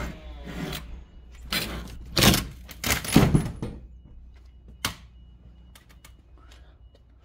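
Basement door being pushed open: a run of knocks, rubs and scrapes, loudest in the middle, then one sharp click about five seconds in.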